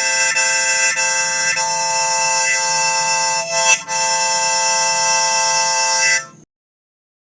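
Music: sustained chords of steady held tones that shift a few times, cutting off suddenly about six seconds in.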